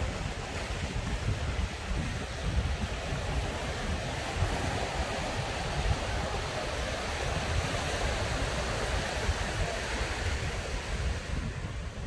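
Ocean surf washing onto the beach, the wash growing louder in the middle and easing near the end, with strong wind buffeting the microphone in a low, fluttering rumble.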